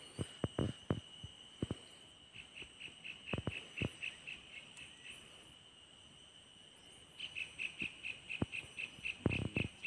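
Insects calling at a pond's edge: a steady high-pitched trill, broken by two runs of rapid chirps at about five a second, one in the middle and one near the end. A few soft clicks and knocks are scattered through it.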